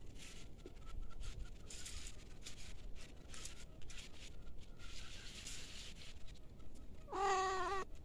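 A domestic cat meows once near the end, a single steady call of just under a second. Before it come short, repeated rustles of steps through dry leaves and ground.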